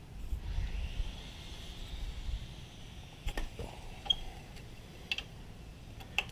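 A low rumble, then four or five sharp, light metallic clicks about a second apart, two of them with a short high ring, like small metal tools or parts being handled.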